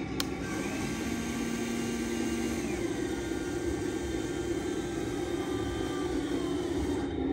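Radio-controlled model truck humming and whirring steadily, with a sharp click just after the start as a switch on the transmitter is flicked.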